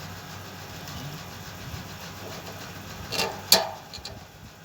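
Two sharp knocks of metal dish parts about three seconds in, the second louder, as the LNB holder is fitted onto the dish arm, over a steady low hum.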